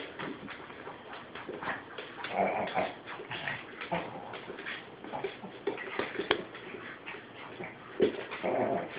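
Small dogs play-fighting on a hardwood floor: short whines at intervals amid scattered clicks and scuffles of paws and claws on the wood.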